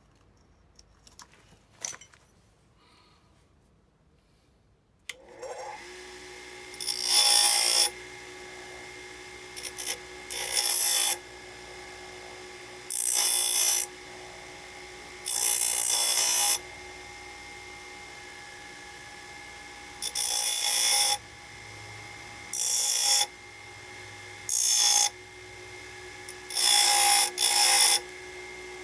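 A small electric power tool starts about five seconds in and runs steadily with a whine. It gives about nine loud grinding bursts of half a second to a second and a half, as it is pressed into the metal of a small motorcycle circuit breaker to open it up. A few faint clicks come before it starts.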